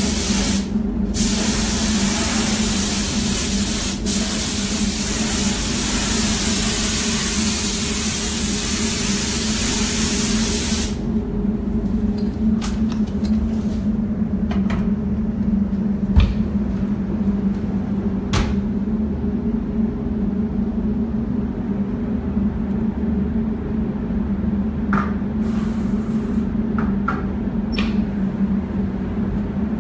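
Compressed-air paint spray gun hissing as paint goes onto a car body. It breaks off briefly about a second in, then stops for good about eleven seconds in. Under it a steady low hum runs throughout, and after the spraying stops there are a few scattered knocks and clicks, one louder thump near the middle.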